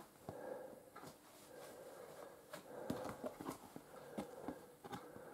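Faint handling noises of a cardboard counter sheet and game box: a scattering of soft taps and light scrapes of card, over a faint steady room hum.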